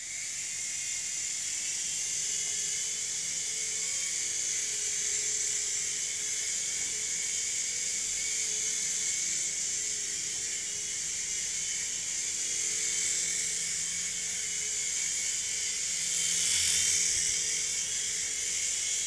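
Small electric motors and rotor blades of a Revell Roxter toy RC helicopter whirring steadily in flight. The whir starts abruptly and swells a little louder near the end.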